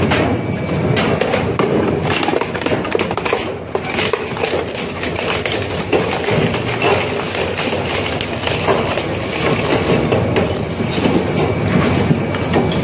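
Industrial twin-shaft shredder tearing up bicycles: a continuous dense crunching and cracking of metal frames, spokes and plastic parts being ripped apart between the rotating cutter discs.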